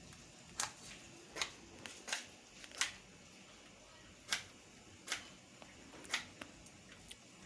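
A safety match struck again and again against the striking strip of a matchbox: about seven short, sharp scratches, with a pause in the middle, as the match fails to light.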